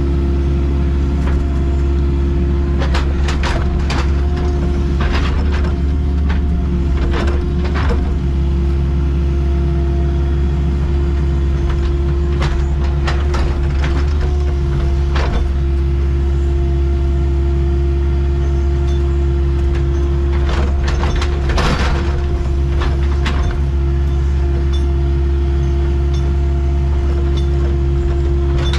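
Excavator's diesel engine running steadily under load, a constant drone with a steady hum above it, with scattered knocks and clatters from the machine's work.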